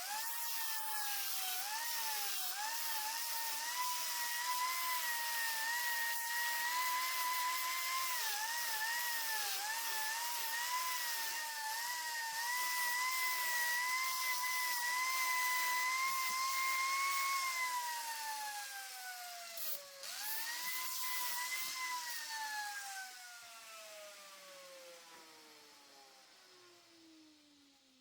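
High-speed electric power tool motor whining with a hiss over it, its pitch wavering and dipping as it works under load. From about 17 s in it is released and spins down, is briefly run up again near 20 s, then winds down to a stop.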